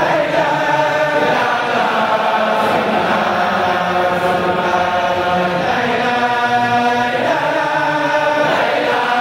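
A crowd of men and boys chanting together in unison: a religious chant sung in long held notes, moving from phrase to phrase every second or few seconds without a pause.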